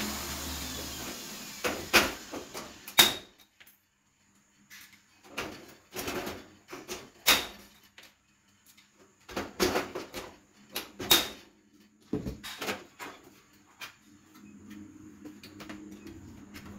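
Aluminium floor slats being fitted into an aluminium cabinet frame: a string of sharp, irregular clacks and knocks, loudest about three seconds and seven seconds in. A motor's whir fades out at the start.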